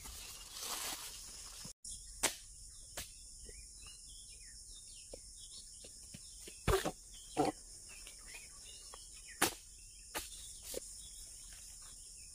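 A steady, high-pitched buzz of insects, with several short knocks scattered through it as a harvester works fresh oil palm fruit bunches on the ground with a long-poled chisel.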